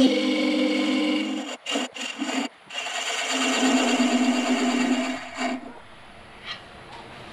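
Wood lathe spinning a green wild cherry goblet while a turning tool cuts inside the thin-walled cup: a scraping cutting noise over a steady hum. The cut breaks off in a few short gaps about two seconds in, resumes, then stops about five and a half seconds in, leaving the lathe running more quietly.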